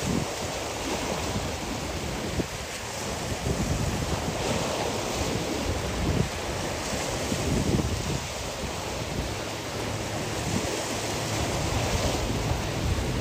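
Wind buffeting the microphone in uneven gusts over the steady wash of choppy sea waves.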